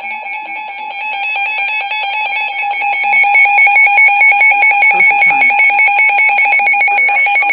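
Emergency Alert System attention signal: a loud, steady, harsh two-tone alert tone. It swells in level over the first few seconds, then holds, and it marks the start of an emergency warning broadcast.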